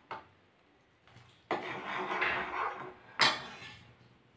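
Steel ladle stirring sugar syrup in a pan, scraping against the pan for about a second and a half, then a sharp knock a little after three seconds in as the ladle is set down in the pan.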